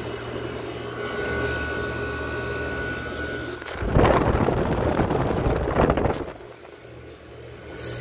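1984 Amana 24,000 BTU air conditioner running with a steady low hum. About four seconds in, a louder rush of air lasts about two seconds, then it drops back to the hum.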